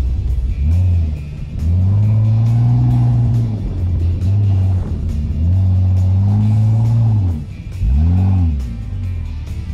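A 4x4's engine driving through soft desert sand, revving up and easing off in about three swells.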